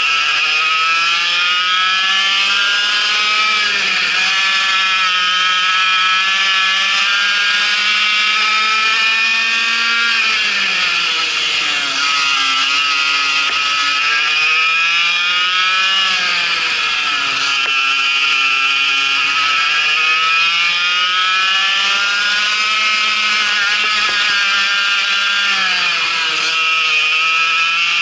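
Vortex MiniRok 60 cc single-cylinder two-stroke kart engine at racing revs, heard from on board. Its pitch climbs steadily along each straight and drops sharply several times as the driver lifts for the corners.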